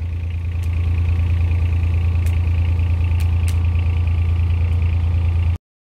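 A steady engine or motor running: a strong low hum with a higher buzz above it, cutting off abruptly near the end.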